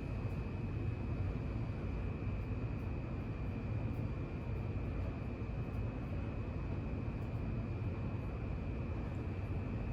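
A 42-inch Mainstays ceiling fan coasting down after being switched off: a steady low rumble of moving air with a faint, steady high tone.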